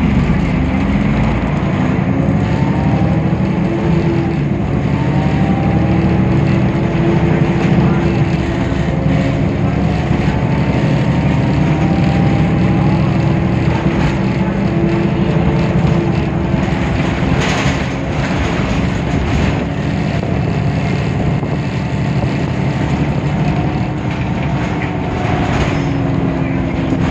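Temsa Avenue LF city bus running under way, its DAF PR 228 diesel engine and ZF automatic gearbox droning steadily, with a whine that rises and falls in pitch several times as the bus pulls away and shifts.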